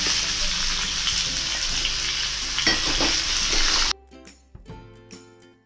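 Cubed pumpkin sizzling in hot mustard oil in a kadhai as a steel ladle stirs it, with a few clicks near three seconds in. At about four seconds the sizzle cuts off suddenly, leaving soft background music.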